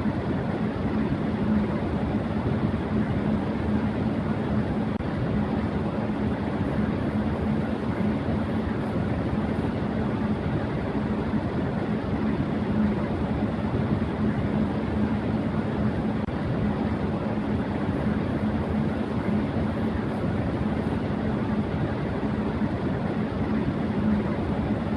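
Electric fan running at high speed: a steady rush of air with a constant low hum underneath.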